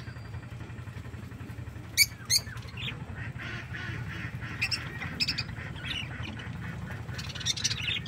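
Aviary flock of budgerigars and lovebirds calling: two sharp squawks about two seconds in, then busy chattering and chirping, with another burst of calls near the end. A steady low hum runs underneath.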